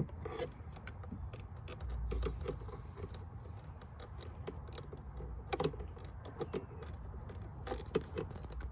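Irregular clicks and light metal taps of a wrench and socket working at a stuck battery fastener, a few a second, louder at the start and around five and a half and eight seconds in.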